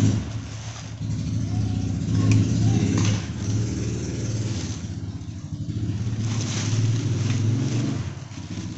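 Electric motor of a battery-powered grass cutter running steadily with a low hum, starting abruptly and dipping slightly partway through.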